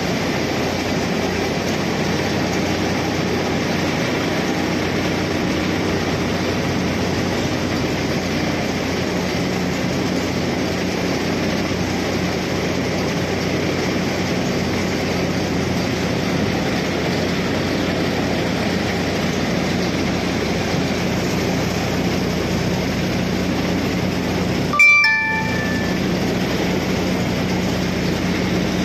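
A river passenger boat's engine running steadily, with water rushing along the hull. About 25 seconds in the engine sound cuts out for a moment and a few short high tones sound.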